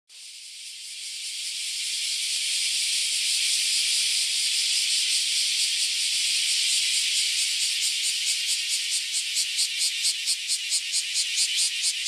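A loud chorus of cicadas: a dense, high buzz that swells over the first couple of seconds and holds steady. From about eight seconds in it turns into a rapid pulsing, about four pulses a second.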